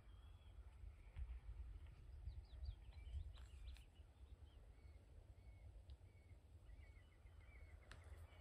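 Faint, short high bird calls, scattered and then in a quick run near the end, over a low rumble of wind on the microphone.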